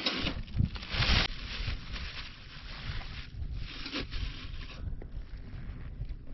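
A plastic bag rustling and crinkling as a logbook wrapped in it is pulled out of a metal summit canister, with a second bout of rustling about three seconds in. A low wind rumble on the microphone lies underneath.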